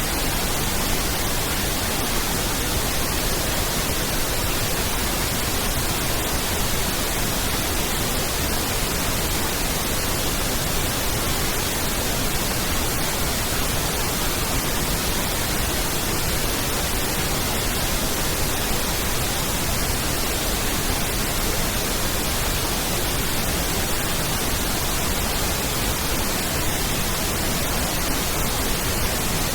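Pink noise: a steady, even hiss spread across the whole frequency range, falling off 3 dB per octave toward the treble. It is a test signal for aligning and equalising a sound system.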